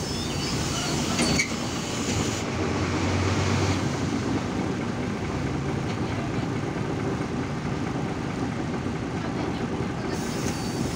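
Irisbus Citelis city bus engine idling at a stop, a steady low rumble heard from inside the passenger cabin.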